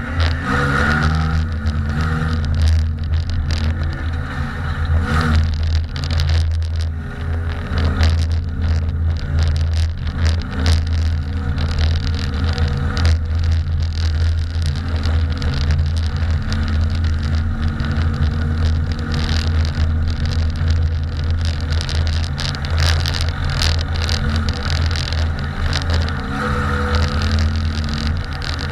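Compact dirt-track race car's engine running hard, heard from inside the cockpit, its pitch rising and falling through the laps, with many sharp knocks and rattles throughout.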